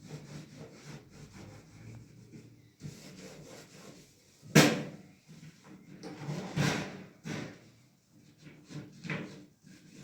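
Irregular knocking and rubbing of objects being handled, with the loudest sharp knock about four and a half seconds in.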